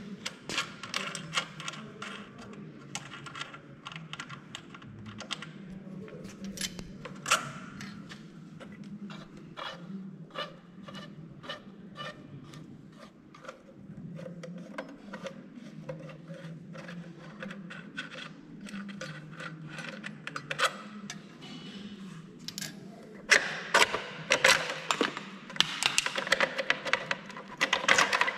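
Small metallic clicks and clinks as a rolled stainless-steel tube is handled and adjusted in the clamp jaws of a pipe seaming machine, with a hex key turning on the fittings, over a low steady hum. The clatter gets denser and louder about three-quarters of the way in.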